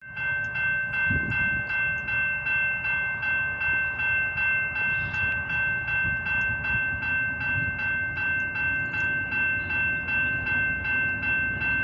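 Railway level crossing warning bell ringing at a steady, even rhythm of about one and a half strikes a second, with a low rumble of the approaching diesel locomotive underneath.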